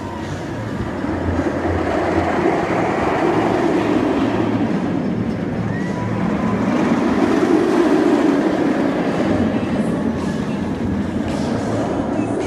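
Inverted steel roller coaster train running along its track, a loud continuous roar that swells about two seconds in and again about seven seconds in as the train goes through the loop.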